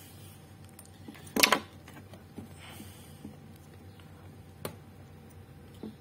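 Handling noise from an amplifier circuit board being picked up and turned over on a metal workbench: one sharp knock about a second and a half in, then a lighter click near the middle and a small one near the end.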